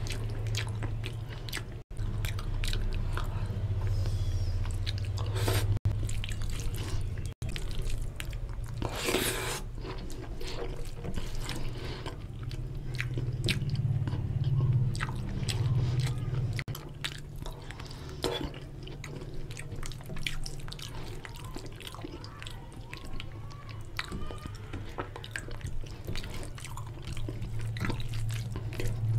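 Close-miked eating sounds: wet chewing and lip smacks, with fingers squishing and mixing oily mutton fat curry into rice, as many short wet clicks over a steady low hum.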